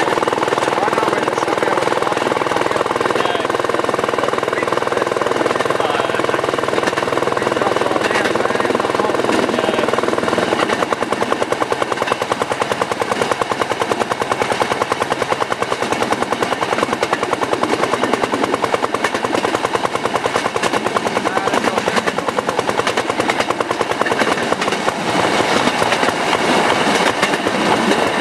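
Rail section car (speeder) engine running as it travels along the track. About ten seconds in, the sound changes from a steadier hum to a rapid, even pulsing.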